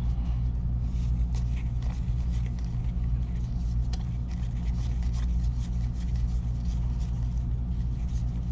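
Steady low hum, with faint crinkling and light clicks of trading-card packs and cards being handled.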